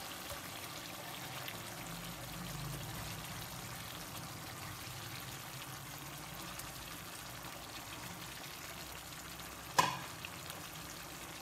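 Thick masala gravy simmering in a kadai with a faint, steady sizzle as stuffed whole brinjals are set into it. A single sharp knock comes near the end.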